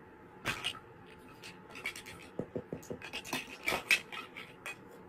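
Plastic toy food pieces handled on a plastic play tray: irregular clicks, knocks and scrapes, with a few quick low knocks about halfway through and the loudest clatter a little before the end.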